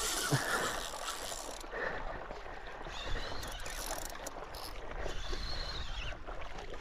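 Water sloshing and lapping against a paddleboard, with wind on the microphone and faint mechanical ticking and whirring from a Daiwa Saltiga 10000 spinning reel while a heavy fish pulls on the line.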